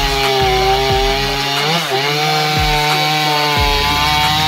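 Vintage Jonsered 535 two-stroke chainsaw running at full throttle while cutting into a log. Its steady note dips briefly under load about two seconds in, then recovers.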